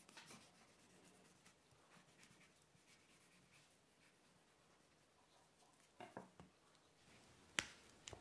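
Faint scratching of a chef's knife sliding through avocado skin and flesh against a wooden cutting board, with a few soft knocks about six seconds in and one sharp knock near the end.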